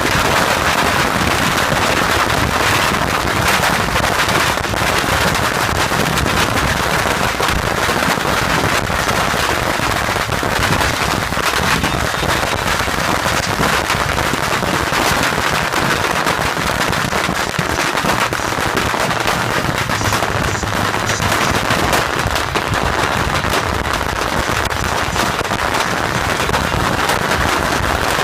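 Rocket "beehive" launcher firing: a dense, unbroken crackle of massed bottle rockets launching and popping.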